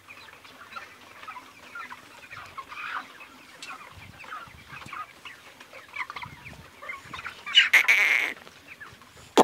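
A flock of 35-day-old broiler chickens in a shed, many birds clucking and peeping softly at once. About three-quarters of the way through, a louder, brief noisy burst stands out.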